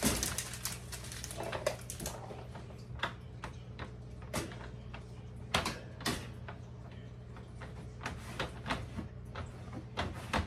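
Plastic supplement jars clicking and knocking as they are handled and set down on the top of a wire dog crate: a string of separate sharp taps at uneven intervals.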